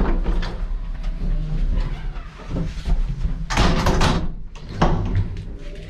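Handling clunks and knocks over a steady low rumble, the loudest cluster about three and a half to four seconds in and another single knock near five seconds.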